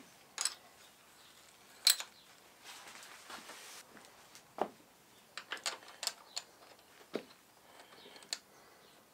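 Mild-steel bar blanks and vise parts being handled in a milling machine vise: scattered sharp metal clicks and clinks, the loudest two in the first two seconds, then a run of lighter taps from about halfway.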